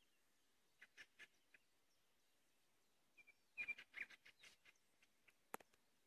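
Faint, scattered songbird chirps and clicks, thickest about three and a half to four seconds in, with one sharp click shortly before the end.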